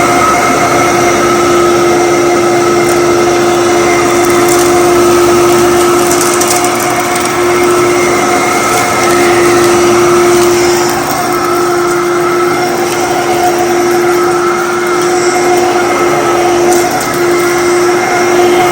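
Kenmore/Fantom Destiny Plus upright bagless vacuum cleaner running steadily with a constant whine, a few faint ticks over the top as it picks up dirt from the floor.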